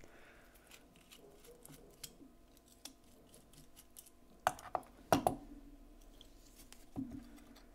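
Small metallic clicks of a T8 Torx bit driver working the screws of a folding knife, with a few sharper clacks about halfway through and one more near the end as the knife's parts are handled and come apart.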